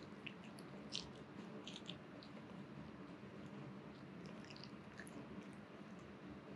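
Papillon licking its lips and mouthing a blanket: faint, scattered wet mouth clicks.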